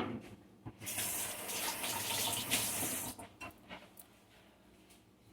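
A sharp knock, then a loud hiss for about two seconds as juicy lime pieces go into a small pot of boiling honey and onions, the juice sizzling in the hot honey.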